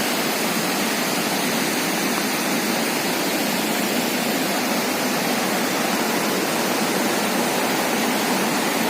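Steady rushing of a waterfall and its rain-swollen stream, an even wash of water noise with no break or change.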